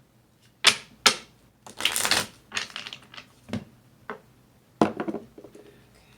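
Tarot deck being shuffled by hand: a run of sharp card slaps and clatters, with a longer rustling stretch about two seconds in.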